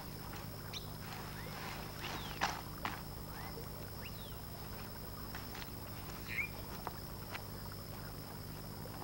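Quiet forest ambience: a steady high insect drone with scattered short bird chirps and clicks over a low hum.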